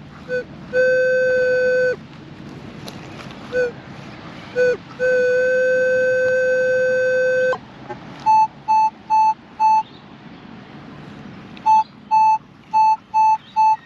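Metal detector audio: a steady low electronic tone, held for a second or two at a time with a few short blips between. From about eight seconds in, a higher tone answers in short, evenly spaced beeps, about two a second, in two runs.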